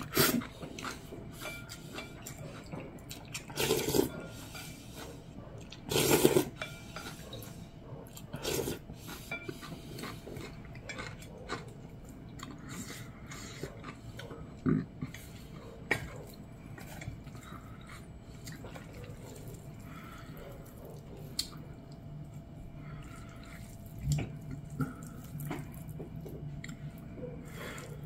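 A person slurping spicy mixed noodles, with a few loud slurps in the first nine seconds, then wet chewing and chopsticks stirring and clicking against a stainless steel bowl.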